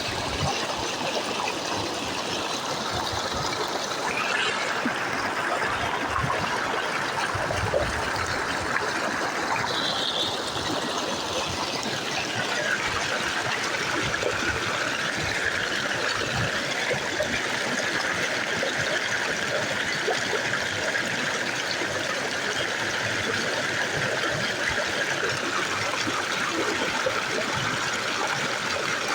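Steady rush of flowing floodwater, with faint shifting tones in the background.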